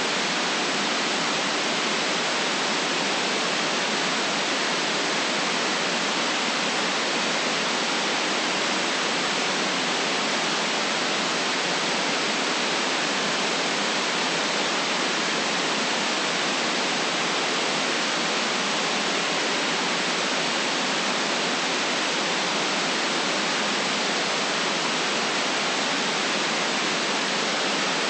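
Steady, unchanging white noise: an even hiss with no rhythm or events, cut off above and below so that it has little deep rumble.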